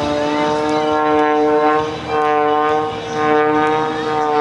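Aerobatic stunt plane's propeller engine running at high power, a loud steady pitched drone. Its pitch sags and the sound dips briefly twice, about two and three seconds in, as the plane manoeuvres.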